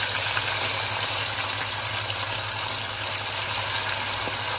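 Marinated fish pieces frying in hot oil in a pot, a steady sizzle just after being put in, over a low steady hum.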